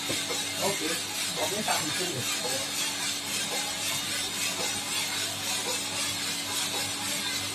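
Suprito 3.5 kg drum coffee roaster running mid-roast with the beans in the drum: a steady hiss with a low hum.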